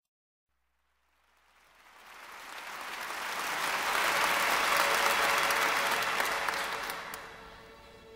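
Crowd applause that swells in after about a second, peaks in the middle and fades away near the end, as a held music note comes in beneath it.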